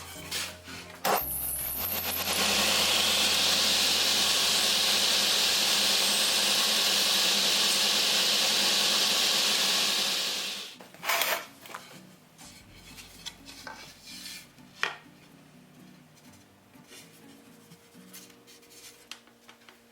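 A shop machine runs with a loud, steady rushing hiss for about eight seconds and then dies away. It is followed by light scraping and tapping of hand work on wood.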